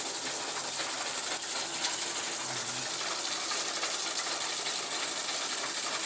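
Electric chaff cutter running steadily: a dense, rapid mechanical clatter with a strong high hiss, drawing about 650 watts.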